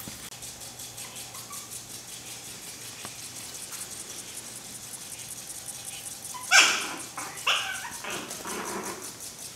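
Pekingese-mix puppies barking in play: one sharp, high bark about six and a half seconds in, then a second about a second later and a few softer ones after it.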